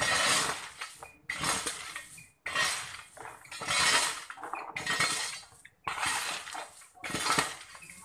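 A shovel scooping into a pile of gravel and throwing it, in a steady work rhythm of about seven rattling scrapes, roughly one a second.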